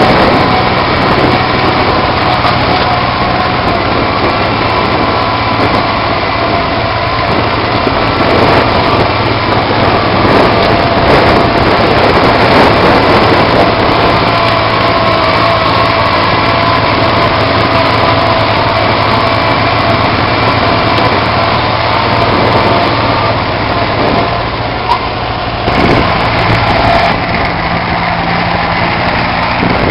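Kubota D1005 three-cylinder diesel in a garden tractor, running steadily and loudly under plowing load. The engine note eases briefly about twenty-five seconds in.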